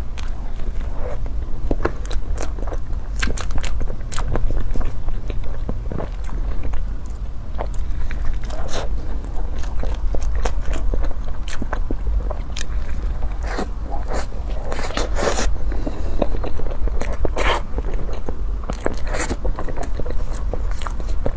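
Close-miked eating: bites and chewing, with many small wet clicks and crackles from the mouth, over a steady low hum.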